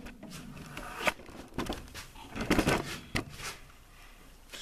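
Handling noise from a handheld camera being moved around: a few irregular knocks and clicks with some rustling.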